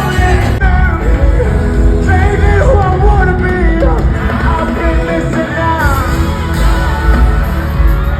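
Pop song with a singer's voice over a heavy bass beat.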